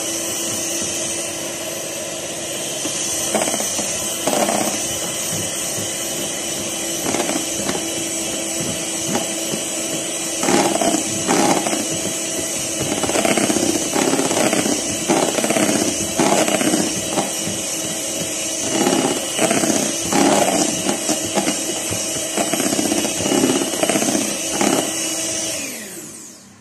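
Electric hand mixer running steadily as its beaters mix flour into egg batter, with irregular knocks and rattles of the beaters in the bowl through the second half. The motor winds down and stops near the end.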